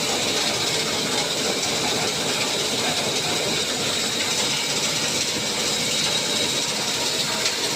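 Concrete mixer machine running steadily: a constant mechanical noise with a faint, steady high whine.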